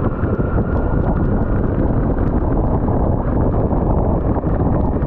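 Wind rushing over the camera of a Honda CBR 250R motorcycle riding at about 45–50 km/h on a wet road, with its engine and tyre noise underneath and a scatter of small ticks from raindrops.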